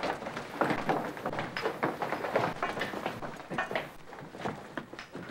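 A crowd of hurried footsteps with knocks and thumps, dense and irregular, thinning out a little near the end.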